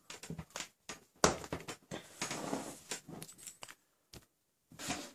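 Handling noise as a USB mouse is plugged into a tablet: scattered small clicks and knocks, with a rustle of about a second from about two seconds in.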